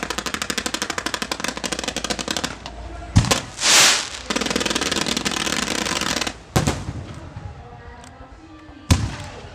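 Aerial fireworks going off: a rapid run of pops at about ten a second, then a bang followed by a brief hissing whoosh and a dense crackle, and single loud bangs about six and a half and nine seconds in.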